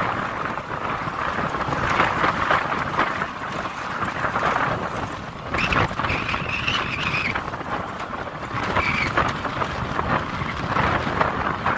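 Ride-along noise on a small motorbike: a steady rush of wind on the microphone over the running engine. A high squeal starts about six seconds in and holds for about a second and a half, then returns briefly near nine seconds.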